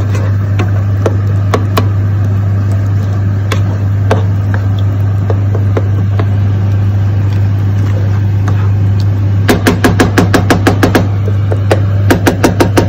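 Wooden spoon stirring a tomato and onion sauce in a nonstick frying pan, knocking against the pan now and then and clicking in quick runs near the end, over a steady low hum.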